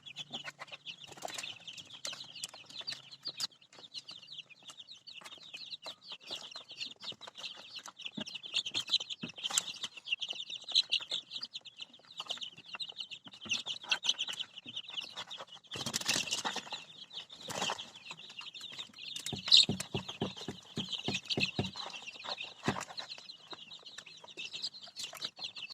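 A brood of young kampung super chicks peeping constantly in a dense, high chorus, with scattered knocks and taps, most of them in the second half.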